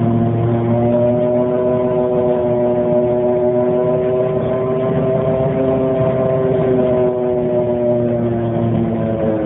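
1998 Dennis Dart bus making a weird, loud droning whine: one steady pitched tone with overtones that rises a little in pitch and eases back down near the end.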